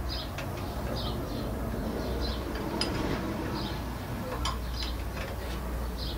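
Small birds chirping in short, repeated calls over a low steady rumble, with a few sharp light clicks.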